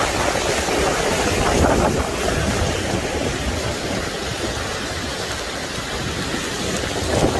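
Steady rushing noise of fast-flowing muddy floodwater, with a low rumble underneath.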